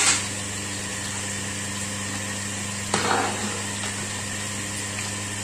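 A metal utensil strikes and scrapes briefly in a wok of boiling noodle soup about three seconds in, over a steady background hum.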